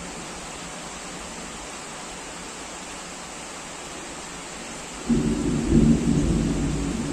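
Steady heavy rain. About five seconds in, a sudden clap of thunder breaks in with a loud, deep rumble that slowly dies away.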